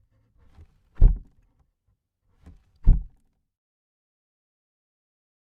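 Two heavy, deep thuds about two seconds apart, each preceded by a faint lighter hit, like slow pounding on a door.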